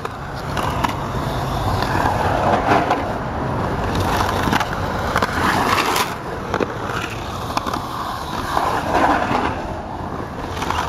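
Skateboard wheels rolling on the concrete of a skate bowl. The rolling noise swells and fades as the rider carves up and down the walls, with a few sharp clicks along the way.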